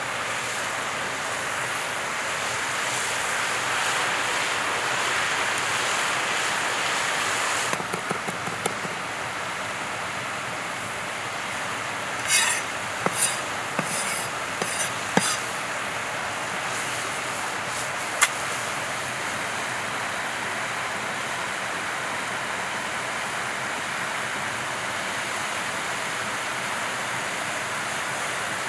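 A handful of sharp strokes and scrapes of a cleaver-style knife on a wooden cutting board: a few around a third of the way in, a quick cluster in the middle and one sharp tap later. Under them runs a steady rushing background noise.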